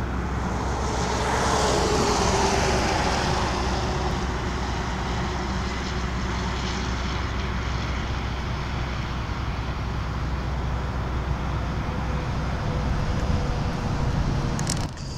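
Steady rush of interstate highway traffic, with one vehicle passing loudest about two seconds in, its tone falling as it goes by.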